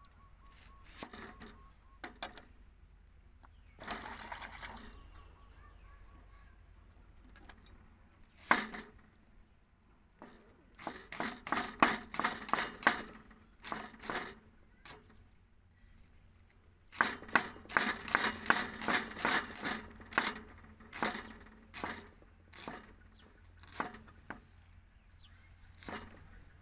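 Cleaver chopping a red onion on a round wooden chopping block. A few separate knocks come first, then two runs of quick strokes, about five a second.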